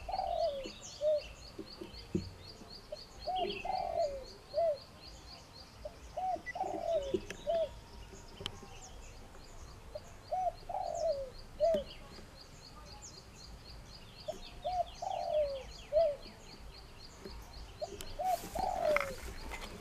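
Doves cooing: short, low, arched coo notes grouped into phrases that repeat every few seconds. Over the first few seconds a fast, high, thin ticking call runs underneath.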